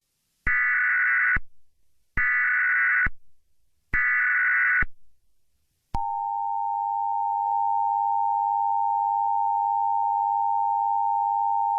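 Emergency Alert System signal: three short bursts of SAME digital header tones, each just under a second long, then the steady two-tone attention signal starting about six seconds in.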